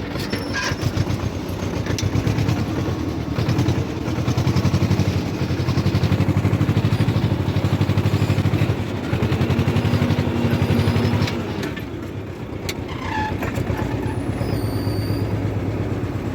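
Tractor engine running under load as its rear-mounted homemade bucket scoops earth, with a fast even pulse. It works hardest through the middle and eases off about eleven seconds in.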